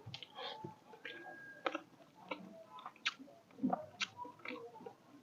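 Close-miked chewing and lip-smacking of someone eating, with irregular sharp wet smacks and clicks.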